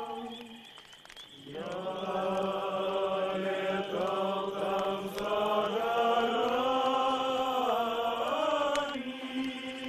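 Men's voices singing a slow song together in chorus, holding long notes, with a short break about a second in.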